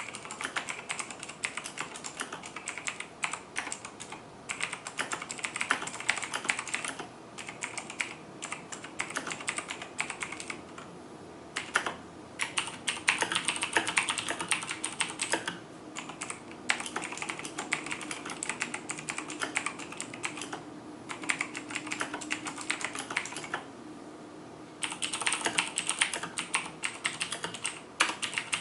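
Fast typing on a mechanical keyboard with clicky switches, in runs of a few seconds broken by short pauses.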